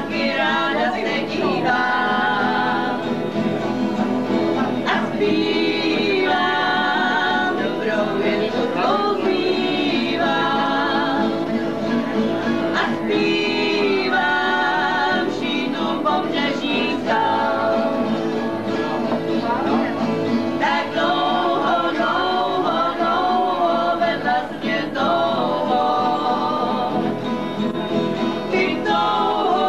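Several people singing a song together, accompanied by a strummed acoustic guitar.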